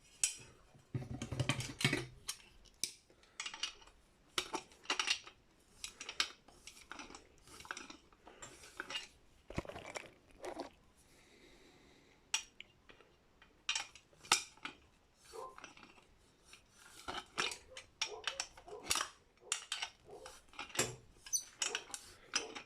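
Brass light-fitting parts clinking and rattling as they are handled and taken apart, in irregular sharp taps and short clatters, with a brief lull about halfway.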